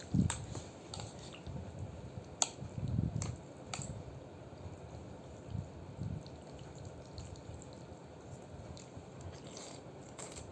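Eating a bowl of noodle soup: a few light clicks of utensils against the bowl among soft wet, chewing sounds.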